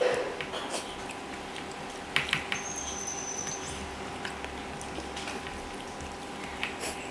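Eating sounds at a meal: chewing and scattered small clicks and taps of hands and dishes, over a steady hum. A brief thin high squeak comes about three seconds in.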